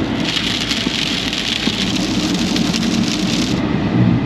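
Rain falling steadily, a hiss over a low rumble; the hiss stops about three and a half seconds in while the rumble goes on.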